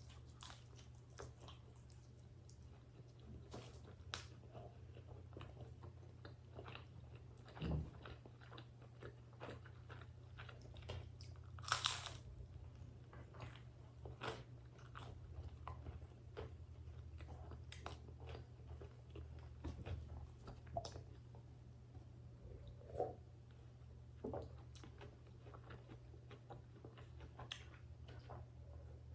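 Close-miked chewing and biting of pepperoni pizza, with the crust crunching in many short crackles and one longer, louder crunch about twelve seconds in. A steady low hum runs underneath.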